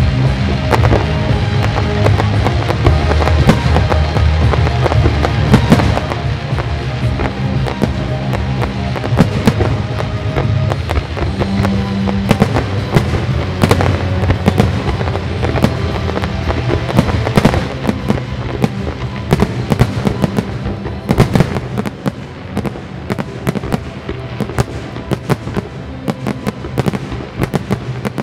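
Fireworks shells bursting and crackling over a music soundtrack. The music's sustained low notes dominate at first and fade in the second half, while the sharp bangs come thicker and faster toward the end.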